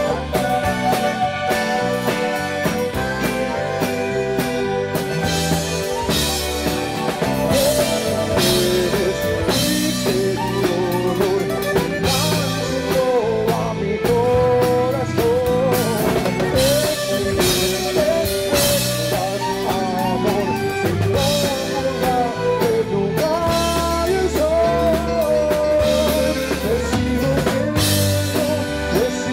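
Tejano band playing, with drum kit, bass and guitar under a wavering accordion melody.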